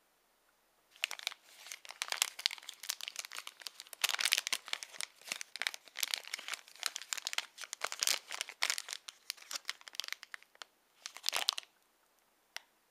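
Plastic snack wrapper crinkling as it is handled and turned over in the hands: a dense run of crackles that starts about a second in and stops shortly before the end.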